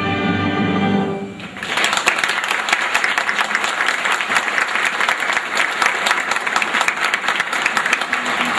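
Orchestra holding a sustained chord that cuts off about a second in, followed at once by the audience applauding.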